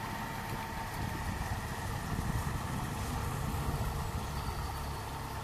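Outboard motor running on a passing long wooden river boat: a steady drone with a faint whine, swelling a little in the middle as the boat goes by.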